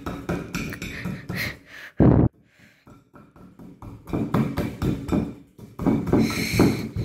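Fingers crumbling and scraping a powdery dinosaur-egg shell against a ceramic plate: a run of scratchy clicks and crackles, with one dull thump about two seconds in.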